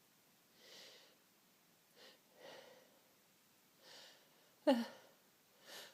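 A sneeze build-up from an itchy, teasing nose: soft breathy inhalations and sniffs, then a sharp voiced gasp falling in pitch about three-quarters of the way through. A last breathy puff follows, with no full sneeze released.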